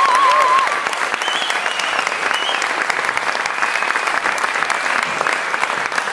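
Audience applauding, with a few high whistles over the clapping in the first couple of seconds.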